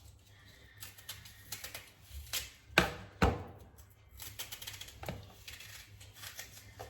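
Kitchen knife cutting an onion: a series of sharp, irregular knocks as the blade strikes through, roughly one every half second to a second.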